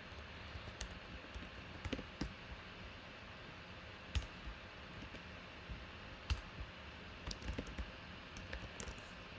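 Scattered light clicks and taps at an irregular pace over a faint steady hiss, with sharper clicks about four and about six seconds in.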